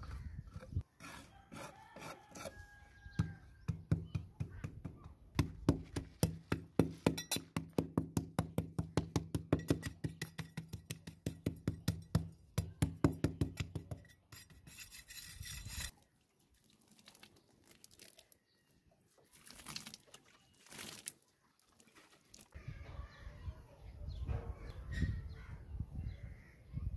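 A wooden straightedge rasping back and forth over a sand-and-mortar floor in quick repeated strokes, about three a second, as the floor is levelled. Later come lighter scrapes and knocks of a steel trowel and bricks in mortar.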